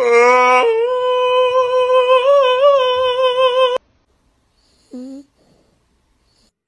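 A long, steady held vocal note, high-pitched with a slight wobble in the middle, lasting nearly four seconds before it cuts off suddenly. Then near silence, broken once by a short whine falling in pitch about five seconds in.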